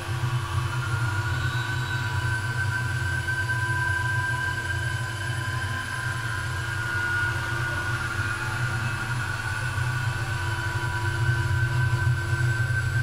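A steady low rumbling drone with a few faint held high tones over it, unchanging throughout.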